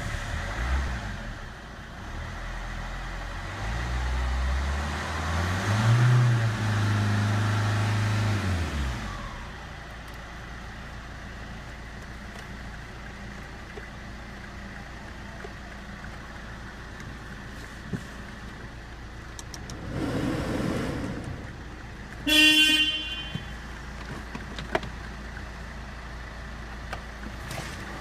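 Opel Vectra C's 1.9 CDTI four-cylinder turbodiesel running just after a start: it is revved up a few seconds in, held high, then drops back to a steady idle about nine seconds in. A short car-horn toot sounds about 22 seconds in.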